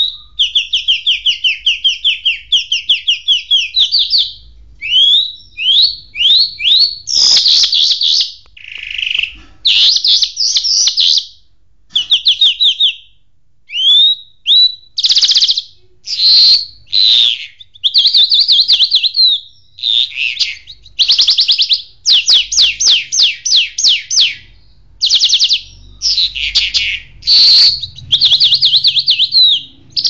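A songbird singing a full, continuous song, loud and close. Its phrases are rapid trills of repeated notes and rising whistled notes, each a second or two long, with short pauses between them.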